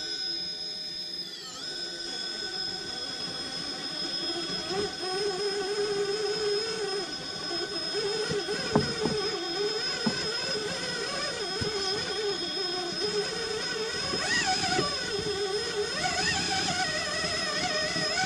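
Electric whine of an RC rock crawler's 3BRC Yellowjacket 2000kv brushless motor and drivetrain, the lower pitch wavering up and down as the throttle is feathered while the truck strains up a rock step. A few short knocks of the tyres and chassis on rock come through over the steady high whine.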